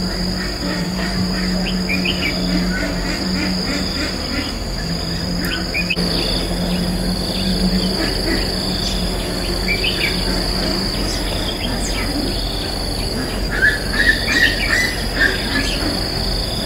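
Red-whiskered bulbuls giving short, scattered chirping calls over a steady high drone of insects, with a louder run of calls near the end. A low hum sits under the first part.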